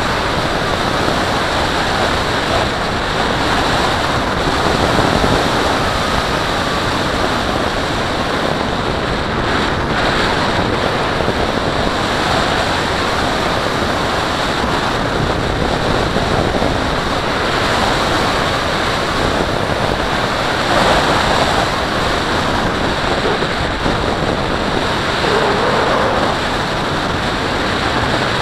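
Airflow rushing over the onboard camera on the wing of a radio-controlled scale glider in flight: a steady, loud wind hiss, with a faint whistle that rises and falls a few times.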